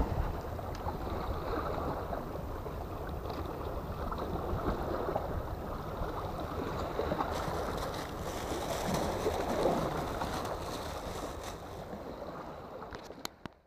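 Sea waves washing against the rocks of a breakwater, with wind buffeting the microphone: a steady, even wash that fades out at the very end.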